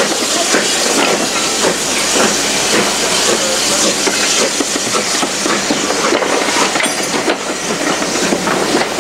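Steam-hauled passenger coaches rolling past at close range, their wheels clattering over the rail joints, with a steady hiss of steam from the locomotive up ahead.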